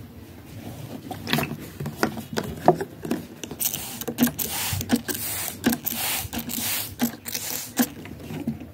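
Irregular clicks and taps mixed with bursts of scratchy rustling, starting about a second in and busiest in the second half.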